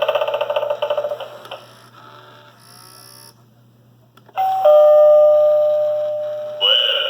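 Gemmy SpEYEder Halloween doorbell toy playing its electronic sounds. A warbling recorded effect ends in the first second and a half, and after a short near-silent pause and a click, its doorbell chime rings out as a loud steady tone that slowly fades. Near the end a new warbling tone starts.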